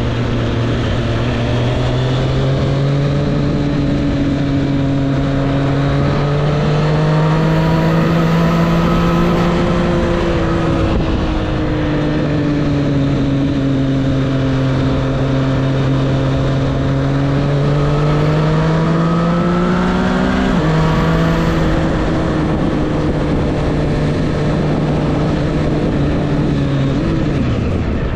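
2024 Triumph Street Triple 765 RS's 765 cc inline three-cylinder engine pulling under way, its note climbing slowly through the gears. It drops suddenly twice, about eleven seconds in and again about twenty seconds in, as it shifts up, and the note falls near the end.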